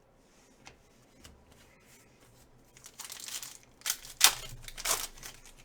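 A 2016 Panini Optic football card pack wrapper being crinkled and torn open, quiet rustling at first, then a few sharp rips in the second half, the loudest about four seconds in.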